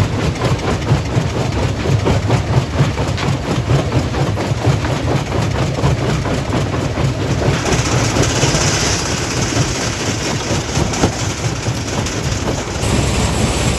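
Stone crushing plant running: a heavy engine's low hum under continuous irregular clattering of rock and steel, with a short burst of hiss about eight seconds in.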